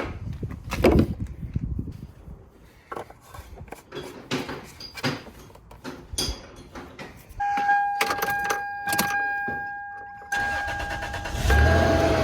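Scattered knocks and clattering, then a steady electronic tone for about three seconds, then the Toyota Tacoma's engine starting about a second before the end and settling into a steady idle.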